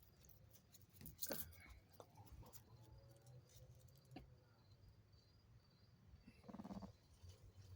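Mostly quiet, with two brief small-dog vocal sounds: a short sharp one about a second in and a short low pitched one near the end.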